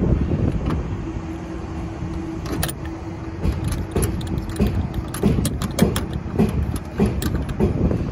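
Metal hand tools clicking and clinking against the brass service valve of a mini split outdoor unit as it is worked with a wrench, with low rumbling handling and wind noise on the microphone. A faint steady hum runs through the first half.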